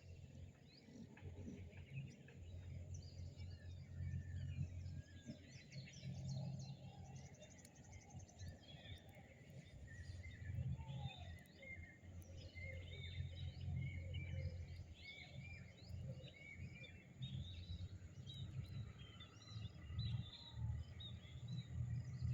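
Many small birds chirping and calling, faint, over a low uneven rumble that swells and fades every second or two.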